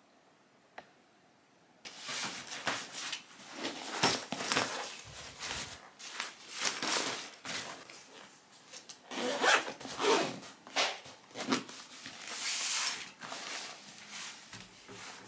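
Zippers being pulled and bags handled while packing luggage: irregular rasping and rustling that starts about two seconds in, after a near-quiet opening with one faint click.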